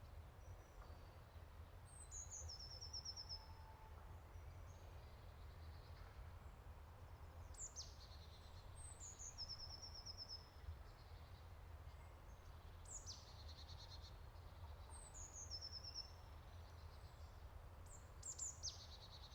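Faint birdsong: short, high, down-sweeping song phrases ending in a trill, repeated about six times, over a steady low rumble.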